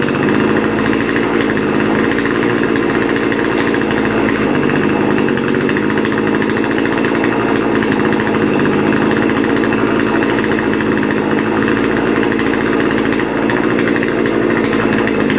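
Chainsaw running steadily through the whole stretch while cutting firewood, its engine note shifting a little now and then under the load of the cut.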